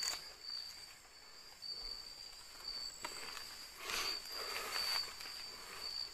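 A faint, steady, high-pitched insect trill that comes in long stretches. Brief rustles of footsteps through undergrowth come about three and four seconds in.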